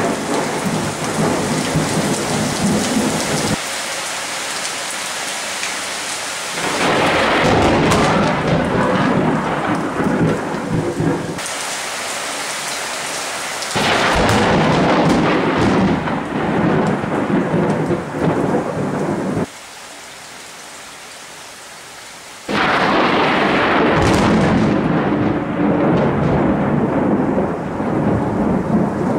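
Thunderstorm: heavy rain with rumbling thunder from nearby lightning. The sound jumps abruptly in level several times, with one quieter stretch of mostly rain about two thirds of the way through.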